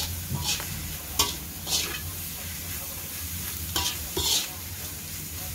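Metal spatula scraping and turning water spinach stems in a wide metal wok over the heat, about five strokes, with the ingredients sizzling. A low steady hum runs underneath.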